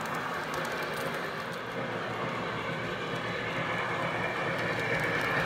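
Lionel three-rail O-scale model train rolling along the track, a steady rolling rumble of wheels on rail that grows louder toward the end as the train comes back around.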